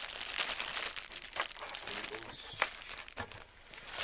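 Packaging crinkling and rustling as a camera box is unpacked, with a few sharp clicks and snaps along the way.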